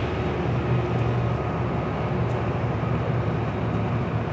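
A large diesel engine idling, a steady low drone with no change in pitch or level. It is most likely the parked rail grinder train's engine.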